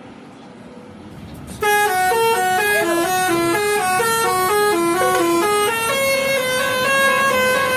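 Bus telolet horn, a set of musical air horns, sounding a quick tune of rapidly changing notes. It starts suddenly about a second and a half in over faint traffic noise, and the notes are held longer near the end.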